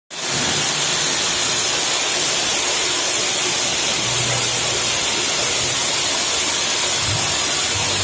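Hawk high-pressure plunger pump washer at about 200 bar, its jet spraying onto a car's body with a loud, steady hiss.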